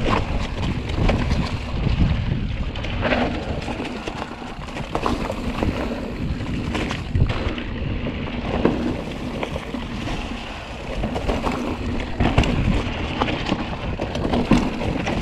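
Mountain bike rolling down a dry, rocky trail: tyres running over dry leaves and stones and the bike rattling, with scattered sharp knocks from the rocks. Wind rumbles on the handlebar camera's microphone throughout.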